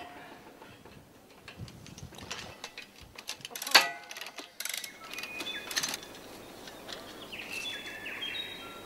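Scattered metallic clicks and clanks of cable-tensioning gear and steel wire rope being worked, with a louder clank and brief squeal about four seconds in and a few short high squeaks or chirps near the end.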